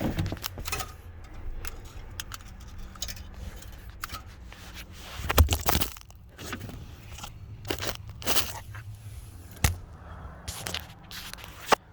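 Key being worked into a newly fitted ignition switch and lock cylinder on a 1991 Chevy 2500HD: scattered clicks, scrapes and key rattles, with a longer, louder scrape about five and a half seconds in and sharp clicks near the end. The key goes in hard.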